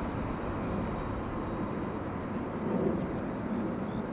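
Boeing 777-200ER's jet engines at climb power as the airliner climbs away after takeoff: a steady, low rumble that swells slightly about three seconds in.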